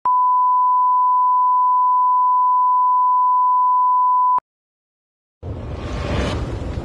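A steady, single-pitched test beep: the 1 kHz line-up reference tone that accompanies broadcast colour bars. It cuts off sharply about four and a half seconds in. After about a second of silence, a low, noisy rumble comes in near the end.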